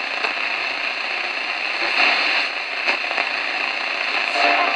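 Hiss and crackle of static from a portable AM radio's speaker as the dial is tuned across the medium-wave band in search of a Slayer Exciter transmitter's harmonic. Near the end, faint music from that harmonic starts to come through the static.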